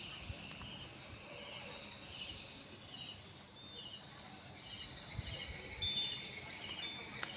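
Faint rhythmic chirping, a short pulsed chirp repeating about twice a second. A few light clicks come from a screwdriver and hands working at the seam of a plastic portable CD player case.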